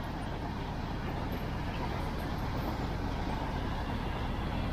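Freight train of covered boxcar wagons rolling past close by: a steady rumbling noise that grows a little louder.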